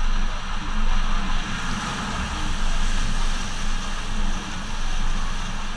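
Toyota Tacoma pickup driving along a wet, muddy field track, heard from a camera mounted outside the cab: wind buffets the microphone over the truck's running noise, and the tyres swish through mud and water, the hiss growing about a second and a half in.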